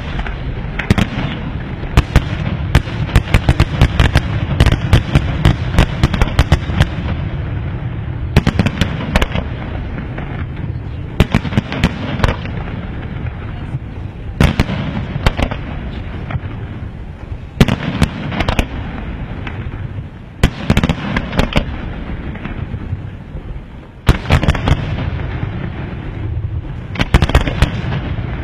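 Fireworks display: aerial shells bursting in quick succession, sharp bangs often in dense clusters over a continuous low rumble, with a few brief lulls between volleys.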